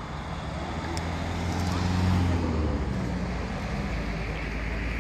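A motor vehicle passing on the road, its engine hum and tyre noise swelling to a peak about two seconds in and then easing off.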